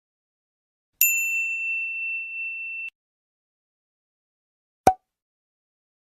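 A single bright ding sound effect: a bell-like tone that rings for about two seconds and then cuts off abruptly. About two seconds later comes one short click.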